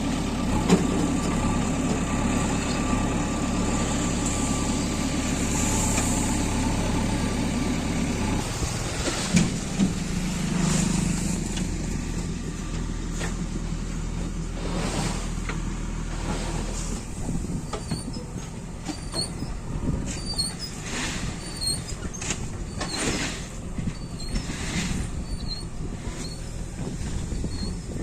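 Heavy diesel engine running loud and steady, its sound dropping and changing about eight seconds in. In the second half, a run of sharp knocks and rattles.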